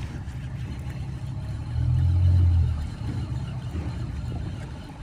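Low, steady rumble of a boat's motor running at trolling speed, swelling louder for about a second around two seconds in.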